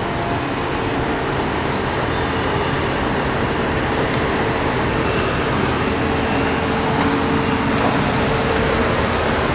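Steady mechanical din of building-site machinery mixed with city traffic, with a constant hum at one pitch running through it.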